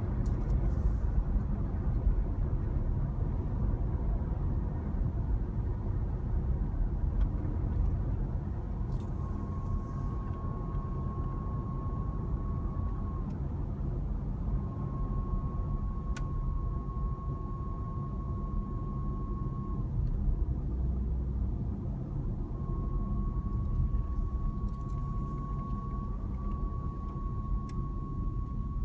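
Road and drivetrain rumble inside a 2014 Jeep Grand Cherokee (WK2) while driving, with a thin, steady whistle that comes in three times, each lasting several seconds, as the vehicle coasts.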